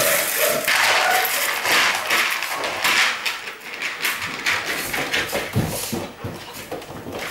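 A puppy eating dry kibble from a pan on a tiled floor: quick crunching and clicking, busiest in the first few seconds, with the pan knocking against the tiles as it is nosed along.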